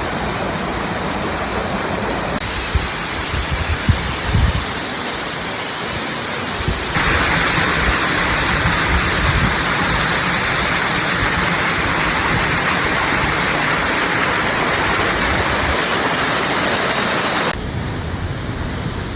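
Waterfalls: the steady rush of falling water, changing abruptly from one fall to the next about two and a half seconds in, about seven seconds in (louder and brighter) and near the end. A few low thumps come a few seconds in.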